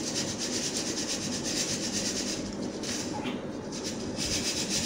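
Round steel flour sieve being shaken and worked over a steel plate: dry pulses rub and rattle on the wire mesh while the flour sifts through. A steady hissing shake made of many quick strokes.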